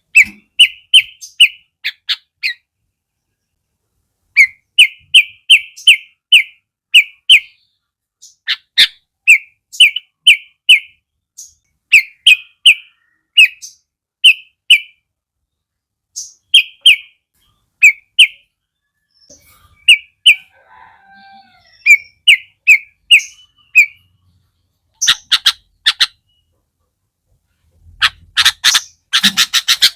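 Sooty-headed bulbul (kutilang) song: quick runs of three to six short, sharp chirping notes, separated by brief pauses, with denser, harsher calls near the end.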